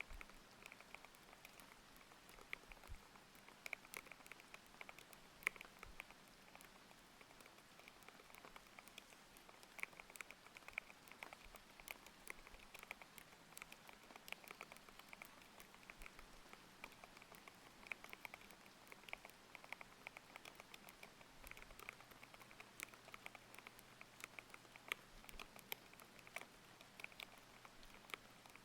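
Continuous, irregular typing on a mechanical keyboard with Aqua King linear switches: many quick keystroke clicks in a row, over a faint steady hiss of layered rain.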